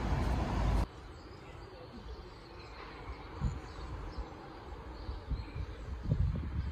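A car driving past on a town street, cut off abruptly about a second in. Then quiet outdoor ambience with faint birdsong and a few soft low thumps.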